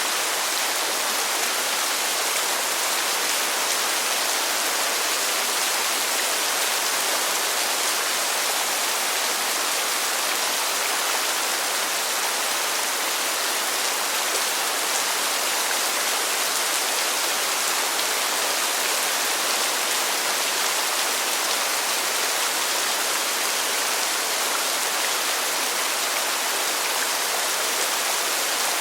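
Heavy rain pouring steadily, a dense even hiss of countless drops with fine patters, at an unchanging level.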